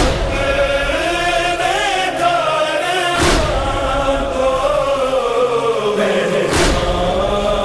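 A group of men chanting a noha (Shia lament) in unison. The sung melody slides up and down and then falls slowly in pitch over the second half. A deep thump comes about every three seconds.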